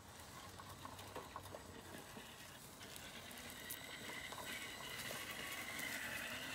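Electric RC scale trail truck (Element RC Enduro Sendero) driving over leaf litter and twigs: small crackles from debris under the tyres, and the whine of its motor and gearbox, which grows louder about halfway through as the truck comes closer.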